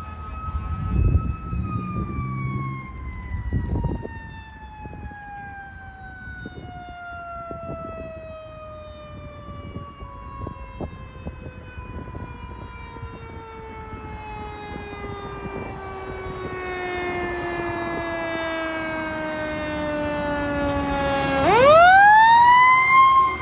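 Fire truck's mechanical siren winding down in one long, slow falling wail, then spun back up sharply near the end, loudest as the truck draws close. A few low rumbles in the first few seconds.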